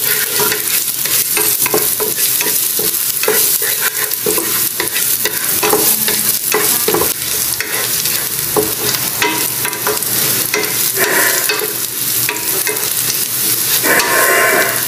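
Chopped garlic sizzling in hot cooking oil in a frying pan, stirred with a wooden spatula whose strokes click and scrape against the pan throughout the steady sizzle.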